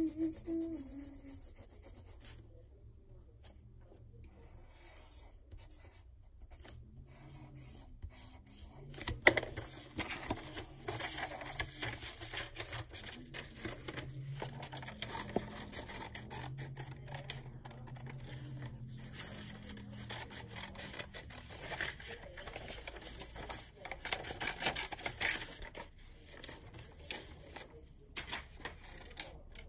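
Sheet of paper being handled and slid over a wooden desk, heard as rubbing and scratchy rustling with many small clicks. It starts with a sharp knock about nine seconds in, after a quieter stretch.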